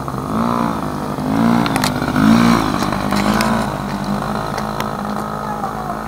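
Small 50cc dirt bike engine running under a beginner rider's throttle, its pitch rising and falling several times in the first few seconds, then settling steadier as the bike moves off.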